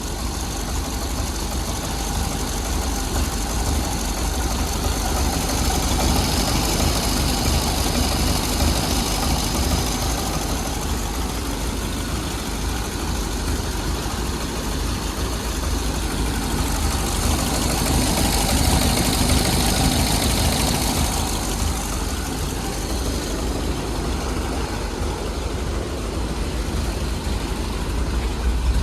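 1932 Ford's engine running steadily after a no-start fault was fixed, swelling louder twice, about a quarter and two-thirds of the way through.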